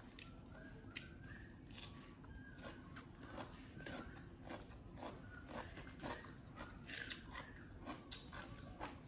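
Baby monkey eating, with irregular small clicks and crunches of chewing and biting, and a few faint short high squeaks.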